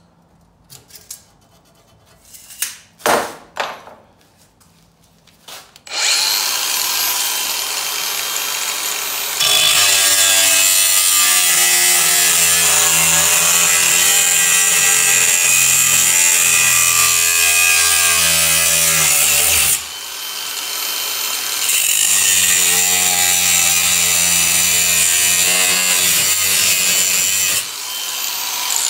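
Angle grinder with a cut-off wheel cutting through steel stock held in a bench vise. A few light clicks and knocks come first, then the grinder starts about six seconds in and runs loud and steady while the wheel is in the metal. It eases off briefly about two-thirds of the way through, cuts again, and stops just before the end.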